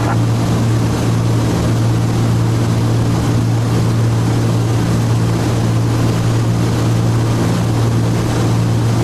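Steady cockpit drone of a Cessna T303 Crusader in level cruise: its two turbocharged six-cylinder piston engines and propellers make a constant low hum, heard from inside the cabin.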